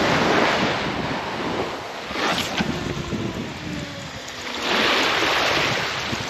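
Waves breaking and washing up the beach in surges, one near the start and a stronger one about five seconds in, with wind buffeting the microphone.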